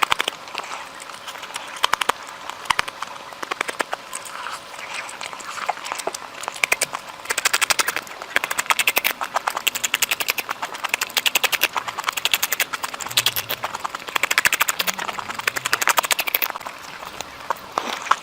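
Close-miked eating sounds: a person chewing curry and meat, with rapid wet clicks and lip smacks in bursts.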